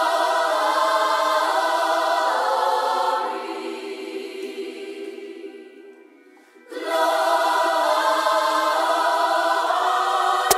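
Background music: a choir singing sustained chords. It fades down about three seconds in and swells back about seven seconds in, and a sharp beat kicks in at the very end.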